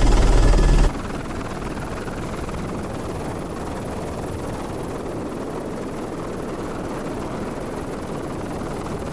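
Helicopter in flight: loud cabin noise with a deep, steady hum, which drops abruptly about a second in to a quieter, even rush of rotor and airflow noise heard from outside the fuselage.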